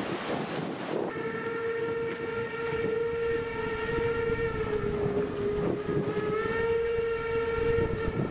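Steam locomotive whistle: one long blast of about seven seconds, starting about a second in, its pitch dipping slightly in the middle. Faint bird chirps sound above it.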